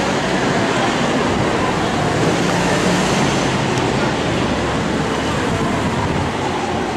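Busy city street ambience: steady traffic noise with indistinct voices of passers-by, a vehicle's low engine sound most prominent in the first half.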